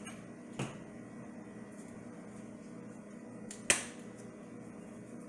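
Two sharp clicks as seasoning containers and utensils are handled at the stove, a small one near the start and a much louder one about three seconds later that rings on briefly, over a steady low hum.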